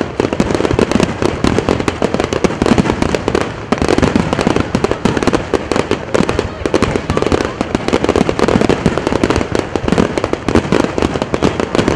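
Fireworks finale barrage: many aerial shells bursting in rapid, overlapping succession with crackle, a continuous run of bangs with no pause.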